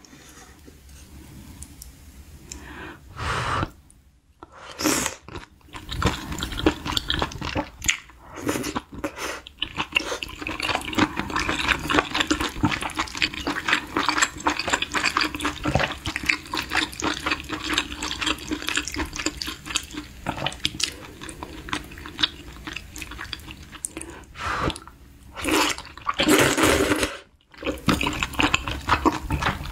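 Close-miked eating sounds: wet chewing of stew and glass noodles with many fine, sticky mouth clicks. There are a few louder slurps, the longest near the end.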